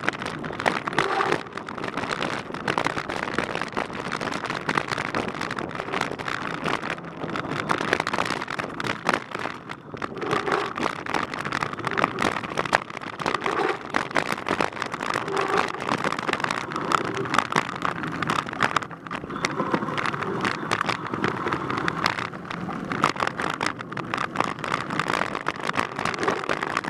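Mountain bike with knobby tyres riding down a dirt singletrack: tyre noise on dirt and gravel with continual rattling and clatter of the bike over bumps.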